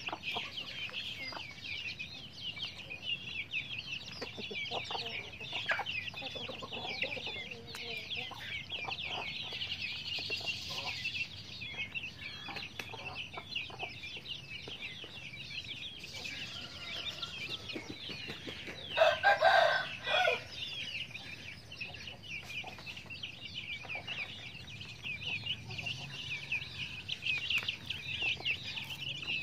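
Chickens with a brood of young chicks: the chicks peep constantly in a dense high chorus, with hens clucking lower beneath them. About nineteen seconds in, an adult chicken gives one loud call lasting about a second and a half, the loudest sound here.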